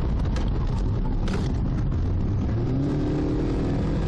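Car driving at about 100 km/h: a steady loud rumble of engine and road noise, with an engine tone coming up in the last second or so.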